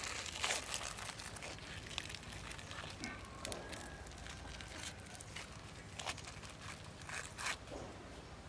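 Metal spoon scraping into a whole grilled snakehead fish and breaking through its crisp charred skin: soft scattered crackles and scrapes, thickest about a second in and again near the end.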